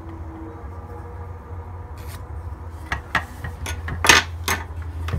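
Workshop handling sounds: a series of sharp knocks and clicks as a pair of clamped wooden rockers and a bar clamp are handled on a workbench, loudest about four seconds in, over a steady low hum.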